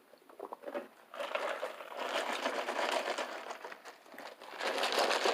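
Paper food packaging rustling and crinkling as it is handled, faint at first, then a dense crackle from about a second in that eases briefly and comes back louder near the end.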